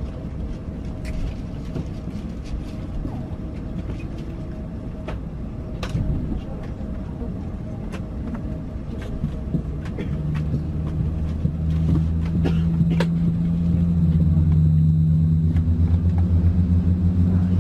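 Cabin noise inside a British Airways Airbus A380 on the ground: a steady low rumble with scattered clicks, then from about ten seconds in a low droning hum sets in and grows louder, pulsing near the end.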